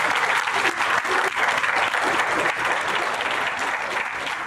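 Audience applauding: dense, steady clapping from a large crowd, beginning to taper off near the end.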